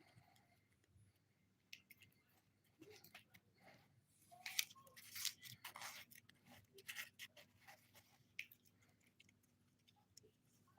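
Close-up handling of a Kinder Joy egg's small plastic parts and wrapping: soft scattered clicks, scrapes and crinkles, busiest between about four and seven seconds in.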